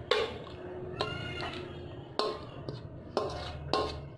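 Metal spoon scraping and knocking against a stainless steel bowl: about six sharp clinks, some with a brief metallic ring, as thick marinade is scraped out.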